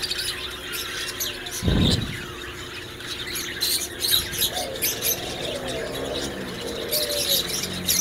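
Fischer's lovebirds chirping, a quick scatter of short high-pitched calls, with a dull thump about two seconds in.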